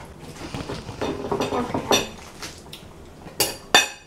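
A kitchen knife cutting and scraping through a pomegranate's tough rind on a ceramic plate, then two sharp clinks close together near the end as the knife strikes the plate.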